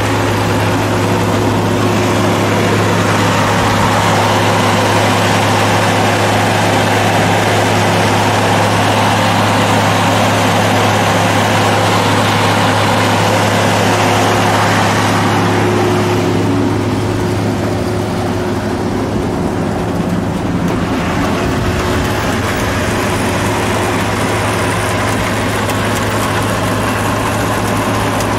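Allis-Chalmers Gleaner A combine running, its Perkins P6 six-cylinder diesel engine holding a steady note under the rushing of the threshing mechanism. The higher rushing eases for a few seconds just past halfway.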